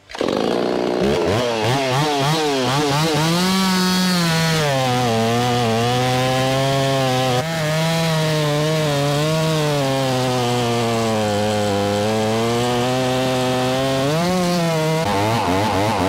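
Stihl two-stroke chainsaw revving, then running at a lower, steadier pitch as it cuts into a white oak log, with a short rise in pitch near the end.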